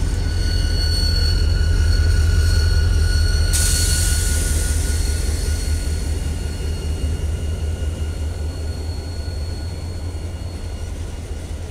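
Several CSX diesel-electric locomotives passing slowly, their engines making a deep rumble that swells and then slowly fades as they move past. A high hiss stops about three and a half seconds in, and a steady high-pitched tone rings over the rumble, fading out near the end.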